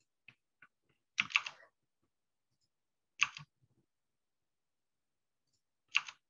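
Scattered clicks of computer keys: a few faint clicks, then three louder short clusters a couple of seconds apart.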